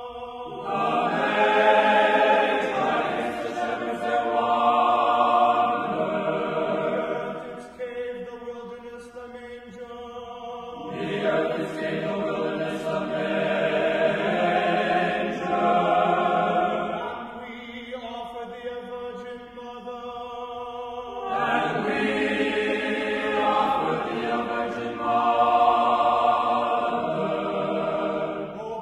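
Choir singing a slow chant in three long swelling phrases, with a quieter held chord sounding between them.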